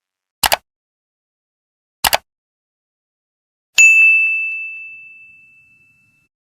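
Two quick double clicks about a second and a half apart, then a single bell-like ding on one high tone that rings out and fades over about two seconds.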